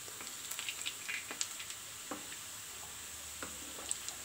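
Gulab jamun dough balls deep-frying in hot refined oil: a steady sizzle with scattered crackling pops, most of them in the first half, as a wooden spatula turns the balls.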